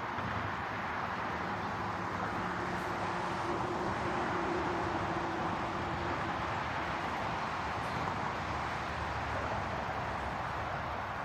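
Steady rushing background noise, with a faint low hum for a few seconds partway through.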